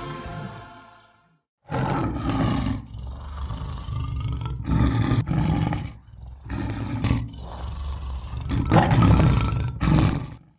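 A lion roars about half a dozen times in a row, each roar a second or two long, starting about two seconds in. Before that, choir music fades out, followed by a brief silence.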